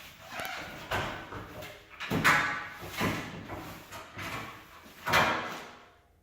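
Repeated scraping, sliding knocks, roughly one a second, as something is pushed across and set down on the wooden garage shelf. The sound cuts off abruptly near the end.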